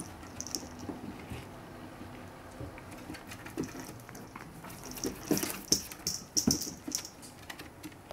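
Paws and claws of a chihuahua puppy and a kitten pattering and clicking on a wooden floor as they run, in quick irregular taps that are busiest about five to seven seconds in.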